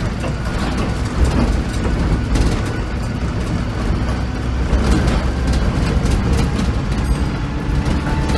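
VDL SB200 Wright Commander bus heard from the rear of the saloon on the move: the rear-mounted diesel engine runs with a steady low drone, over frequent short rattles.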